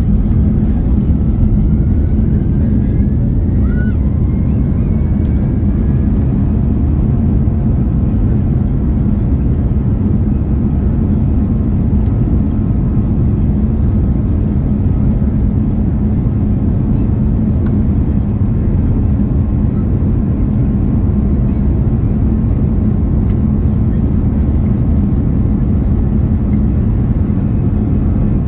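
Steady, loud cabin noise of a four-engine Airbus A340-300 airliner, heard from inside the cabin: the jet engines and rushing air make a constant low hum. A faint whine rises in pitch during the first few seconds.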